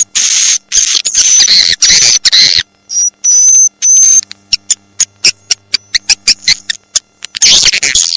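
Swiftlet calls played as a swiftlet-house lure: loud, raspy high chirps, a few thin high whistles, then a run of sharp clicks at about four or five a second, with another burst of chirping near the end.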